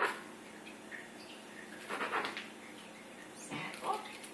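Table knife sawing through toast on a plastic cutting board: short crisp scraping strokes about two seconds in and again near the end.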